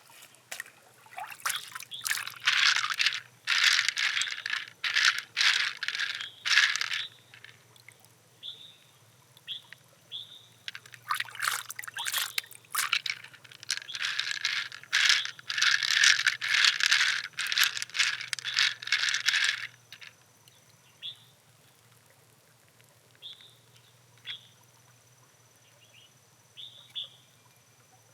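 Small hard objects clicking and rattling together with water, in two long spells of rapid clicks, then a few scattered clicks near the end.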